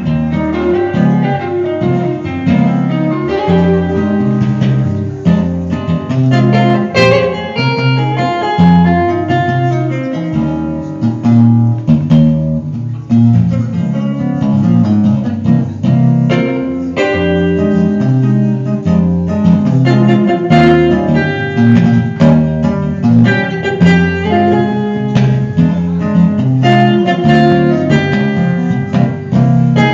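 Chapman Stick played solo and amplified, both hands tapping the strings: a walking bass line of low notes under a running guitar-like melody at the same time.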